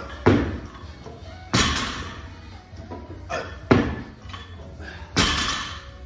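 Loaded barbell with bumper plates striking the rubber gym floor during 165-lb power snatches: four loud thuds with a metallic clank, about one and a half to two seconds apart.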